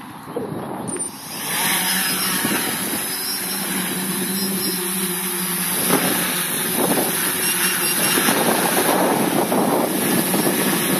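Quadcopter's brushless motors and propellers spinning up about a second in and then running steadily with a humming whine as it lifts off and hovers.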